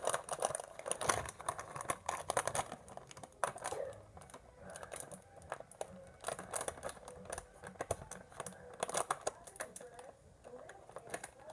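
Snack packaging being handled: irregular light crinkling and small clicks.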